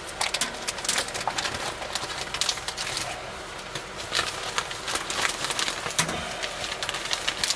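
Plastic bag crinkling and rustling in the hands as a pizza is pulled out of it, with dense, irregular crackles.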